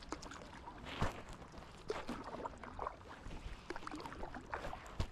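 Water splashing and lapping around a paddleboard as a paddle dips and pulls through it, in an irregular run of small splashes and gurgles. A sharp knock comes about a second in and another near the end.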